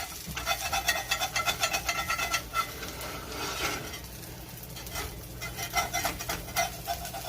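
A spatula scraping repeatedly across the bottom of a cast iron skillet in quick strokes, working loose an egg that has stuck to the freshly sanded and re-seasoned surface. There is a brief lull about four seconds in before the scraping resumes.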